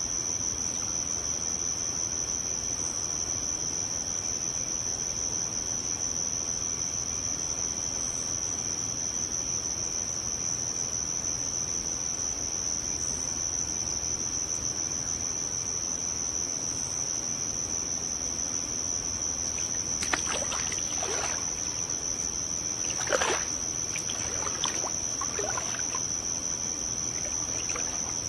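Swimming-pool water sloshing and splashing in a few short bursts about twenty seconds in, over a steady high-pitched whine and hiss.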